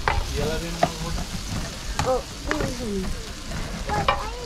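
Chicken sausages sizzling in a frying pan on a camp gas stove, with a serving spoon clicking and scraping against the pan a few times as they are scooped onto a plate.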